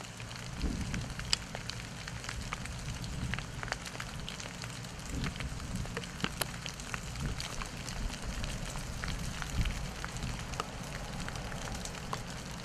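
Irregular light pattering and ticking of drops and bits of ice falling from ice-glazed trees onto branches and leaf litter, over a low steady rumble.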